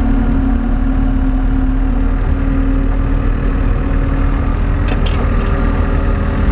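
Skid steer engine running steadily; its tone shifts about two seconds in. A brief knock comes about five seconds in.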